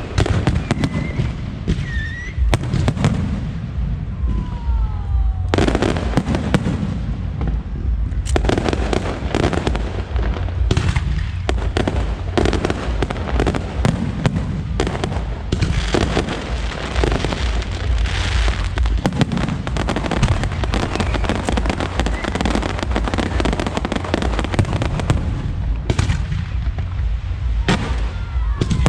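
Fireworks going off in a dense, continuous barrage of bangs and crackling, with a few short whistles gliding in pitch.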